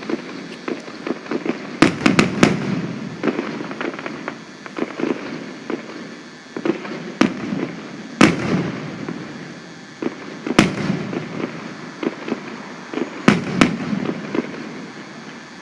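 Fireworks going off at a display. A quick cluster of sharp bangs comes about two seconds in, then single bangs every few seconds and a close pair near the end, over continuous crackling and rumbling.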